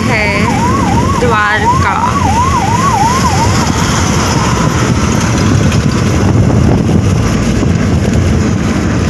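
Ambulance siren warbling rapidly up and down, about two to three swings a second, cutting off about three and a half seconds in. Steady road and wind noise of the moving car continues underneath, heard from inside the car.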